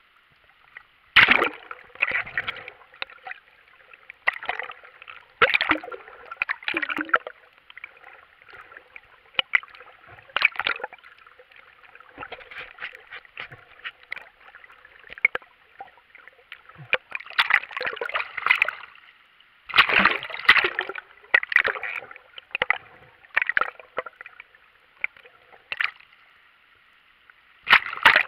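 Sea water splashing and gurgling around a waterproof camera as it moves through the surface and underwater, in irregular bursts a few seconds apart with a steady wash of water between them.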